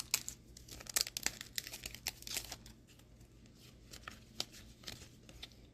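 Crinkling of Pokémon booster-pack wrappers as cards are pulled out and handled: irregular sharp crackles and clicks, busiest in the first couple of seconds, then sparser.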